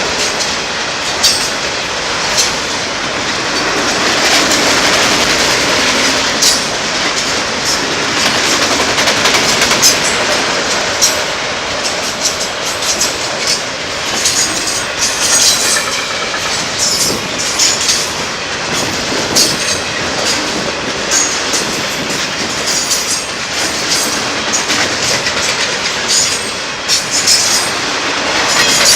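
Norfolk Southern freight train cars rolling past at close range. A steady rumble of wheels on rail, with sharp, irregular clacks as the wheels cross rail joints.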